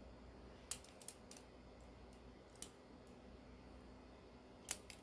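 Faint, scattered metallic clicks of a balisong (butterfly knife) being handled, its handles and blade knocking together, about six in all with two close together near the end.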